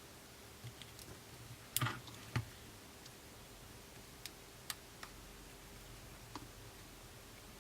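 Sparse small clicks and taps of a precision screwdriver and tiny screws being fitted back into an iPhone 6s, with two louder knocks about two seconds in.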